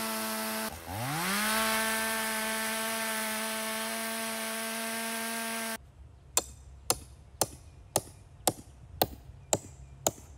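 Stihl chainsaw running at full throttle, cutting a dead hardwood stump. Just under a second in the engine speed drops and revs straight back up. Then a hammer strikes a steel crowbar eight times, about twice a second, chipping out the cross-hatched stump.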